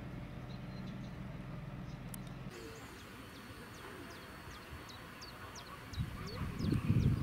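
A steady low engine hum, then an abrupt change to a small bird chirping over and over, a short high falling note about twice a second. A louder low rumble comes in near the end.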